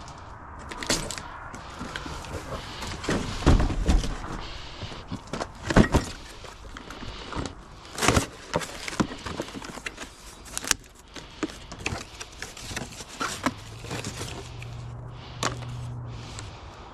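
Irregular knocks, clicks and clatter of tools and parts being handled, loudest about three and a half, six and eight seconds in, with a low steady hum for a couple of seconds near the end.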